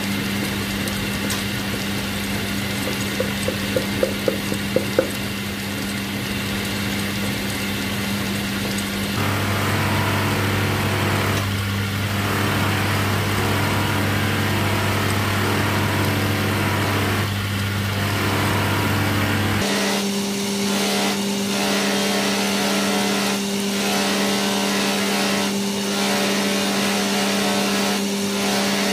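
Electric motor of a workshop lathe and belt-driven buffing wheel running with a steady hum, the tone shifting twice. A quick run of about eight light knocks comes a few seconds in.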